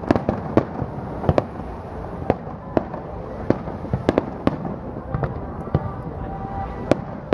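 Aerial firework shells bursting: a dozen or so sharp bangs at irregular intervals over a steady background noise.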